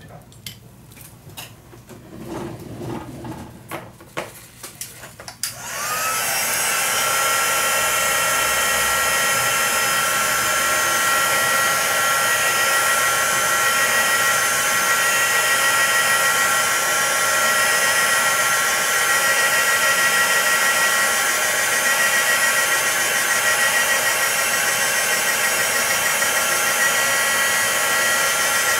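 A few light handling clicks, then about five seconds in a small handheld heat tool is switched on: its fan spins up with a short rising whine and settles into a steady rush of blown air with a high steady whine, drying the wet watercolour paint.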